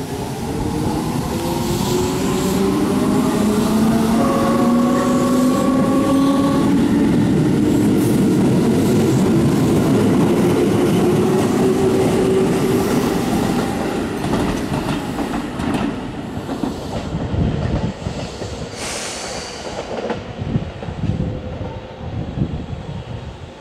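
A Keihan electric train accelerating past: the rising whine of its traction motors, with a steady tone held for about two seconds around four seconds in. After that come the repeated clacks of wheels over rail joints, slowly fading.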